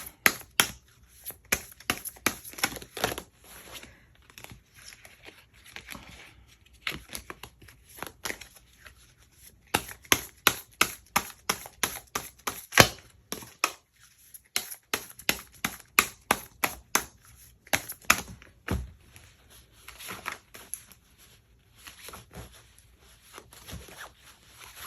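Cards and paper being handled on a table: a long run of small, irregular clicks and taps, several a second, with faint rustling between them.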